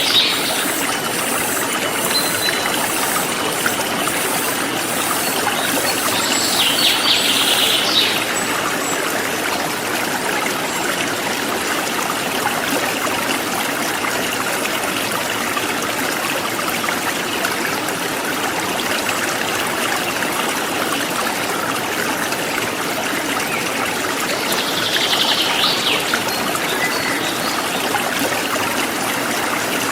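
Forest stream flowing and trickling steadily. Short chirping trills break in three times: at the start, about seven seconds in, and near twenty-five seconds.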